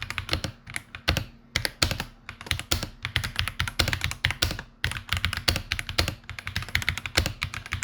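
Typing on the VX Gaming Sun-Wukong 68-key hot-swappable mechanical keyboard: a fast, uneven run of key clacks with a couple of brief pauses.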